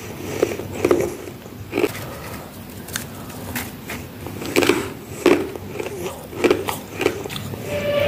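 Bites into soft, crispy freezer frost taken from a humidifier-frosted freezer, with about seven sharp crunches close to the microphone, unevenly spaced.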